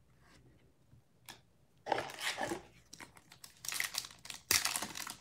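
A foil trading-card pack crinkling in the hands and being torn open, starting about two seconds in and getting louder toward the end.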